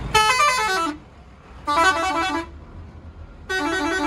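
Sultan 021P six-pipe air pressure horn on a bus playing three short tune bursts from its push-button piano switch: the first a falling run of stepped notes, the next two quick back-and-forth note patterns.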